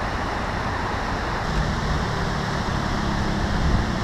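Steady rushing of water from an outflow pipe spraying into the pond. A low hum joins about a second and a half in.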